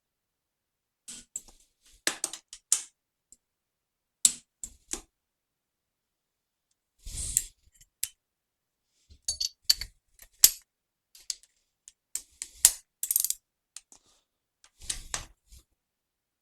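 Ratchet torque wrench clicking and ticking in short bursts as cylinder head bolts are checked and tightened to torque, with a few knocks of tools on metal, the loudest about seven seconds in.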